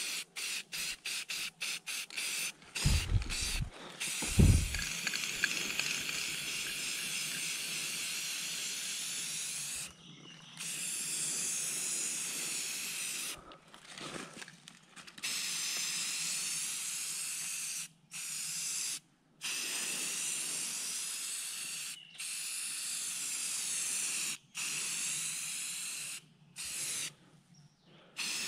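Aerosol spray paint can hissing as paint is sprayed onto tree bark: first a quick run of short squirts, then long sprays of several seconds each, each cutting off sharply. Two low thumps about three and four and a half seconds in.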